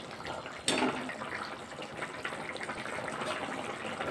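Fish-curry broth boiling in a kadai, a steady bubbling and crackling. A sudden louder clatter comes about a second in.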